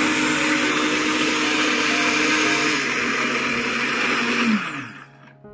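Electric countertop blender running at speed, liquefying apple chunks and water into juice. About four and a half seconds in it is switched off, and the motor whine falls in pitch as the blades spin down.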